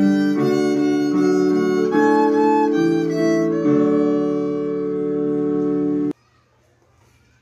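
Violin played by a child over a recorded accompaniment, settling on a long held final note about four seconds in that cuts off suddenly about six seconds in.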